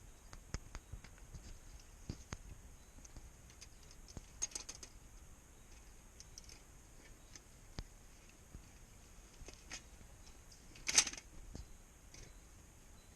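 Small wire live trap rattling and clicking lightly as a trapped chipmunk is being let out of it. There is a louder clatter about eleven seconds in.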